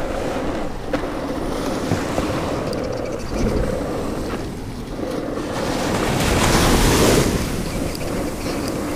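Ocean surf washing up on a beach, with one wave breaking louder about six seconds in. Wind rumbles on the microphone underneath.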